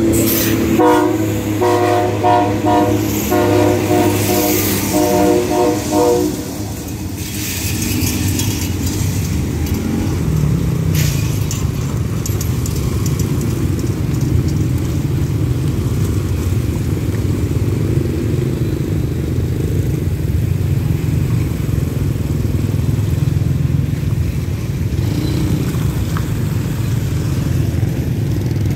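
The multi-chime horn of an SRT diesel railcar express sounds as a rapid string of short blasts for about six seconds as the train comes through the level crossing. A steady low rumble of the passing train and nearby motorbike engines follows.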